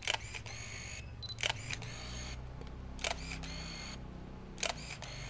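Canon EOS 500N film SLR firing four times, about a second and a half apart. Each shot is a sharp shutter click followed by a short, high whir of the built-in motor winding the film.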